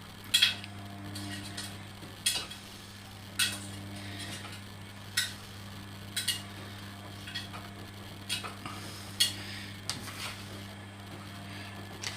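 A utensil clinking and tapping against a plate about ten times, irregularly, as pieces of chicken are laid on a salad, over a steady low hum.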